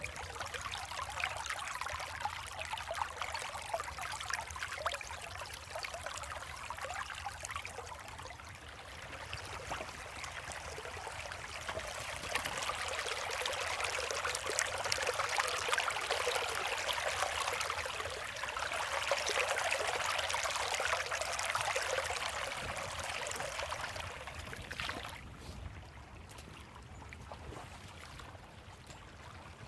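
A creek's water running and trickling over rocks, swelling louder in the middle and falling away near the end.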